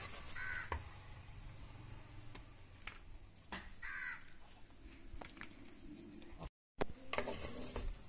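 Two short animal calls, about half a second and about four seconds in, over scattered clicks of a serving spoon against a clay pot as the chicken is spooned out.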